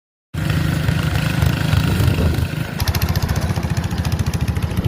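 Lawn mower engine running with a fast, even beat that grows more distinct about three seconds in.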